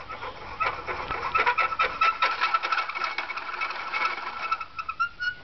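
Coins rattling and clicking inside a clear plastic cup as it is moved about on a wooden table, with a steady high squeak from the cup rubbing over the surface. It stops a little after five seconds in.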